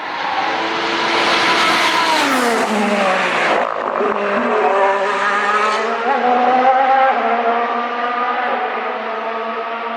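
Ferrari F1-75 Formula 1 car's 1.6-litre turbocharged V6 hybrid engine going by at speed. Its note drops steeply in pitch over the first few seconds as it passes, then settles into a steadier engine note that rises briefly about six seconds in.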